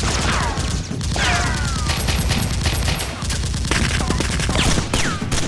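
Rapid, sustained gunfire: a dense run of shots, with several falling whistle-like tones over them.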